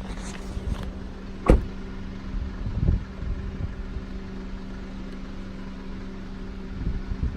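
A steady low machine hum, with a sharp click about one and a half seconds in and a softer knock a little before three seconds.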